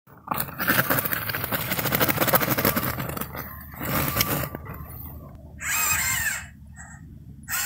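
Homemade remote-controlled snow plow with electric drive motors and chained wheels working on snow: a dense crunching, clattering noise for about three seconds, then a shorter burst, and a brief pitched whine or squeal near the end.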